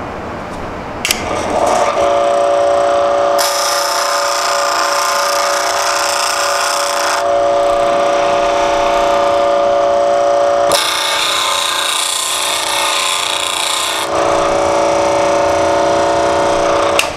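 Bench grinder running with a steady whine from about two seconds in. Twice, for a few seconds each, a steel chisel is pressed against the grinding wheel, adding a loud hissing grind as the bevel is ground. The grinder stops just before the end.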